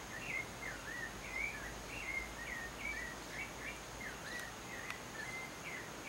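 Rufous-bellied thrush singing: an unbroken run of short whistled notes that slide up and down, a few each second.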